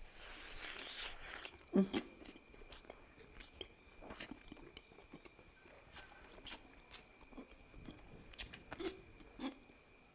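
Close-miked eating of a fish dish: a string of short wet clicks and smacks of chewing and biting, with a hiss of noise in the first second or so and a louder knock a little under two seconds in.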